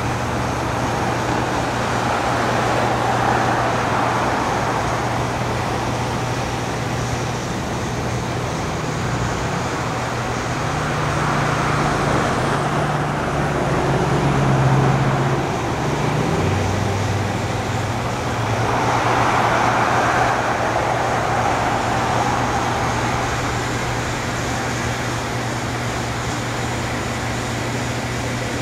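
Freight train of tank cars and boxcars rolling across a steel truss bridge: a continuous rumble of wheels on rail that swells and eases a few times as the cars pass.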